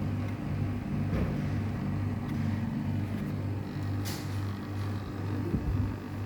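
National multi-split air conditioner running with its outdoor unit blowing: a steady low hum that throbs evenly. A brief high hiss comes about four seconds in.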